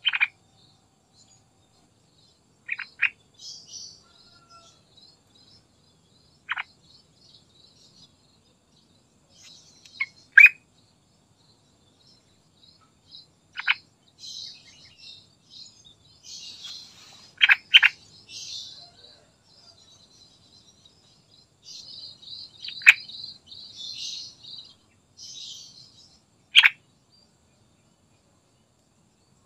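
Yellow-vented bulbul (trucukan) calling: about ten short, sharp notes that sweep quickly downward, some single and some in pairs, every few seconds, with softer high twittering between them.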